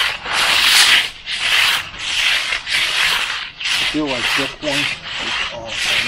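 Hand trowel scraping across the surface of a freshly poured concrete slab in repeated strokes, roughly one every two-thirds of a second.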